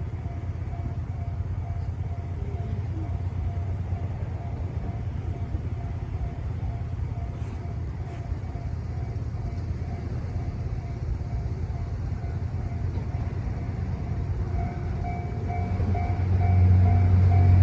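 Railway level-crossing warning bell ringing at an even rhythm over the steady low rumble of the Twilight Express Mizukaze, a diesel-electric sleeper train, running over the crossing; the rumble grows louder near the end.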